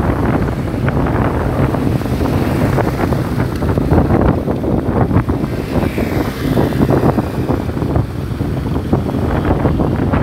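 Heavy wind buffeting the microphone of a helmet-mounted phone while riding a motorcycle, with the motorcycle's engine and road noise running underneath.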